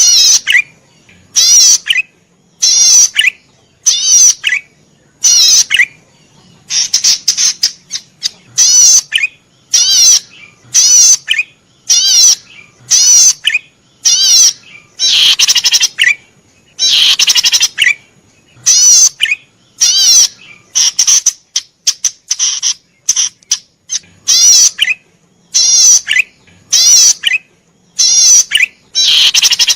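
A cisticola (cici padi merah) singing vigorously: short loud phrases of rapid buzzy trilled notes, often ending in a lower falling note, repeated every second or so.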